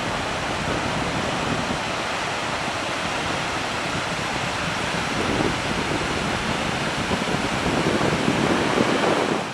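Ocean surf: a steady wash of breaking waves, swelling a little louder near the end.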